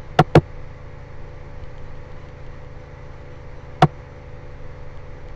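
Computer mouse button clicking: two quick clicks right at the start, then a single click near the end, over a steady low electrical hum.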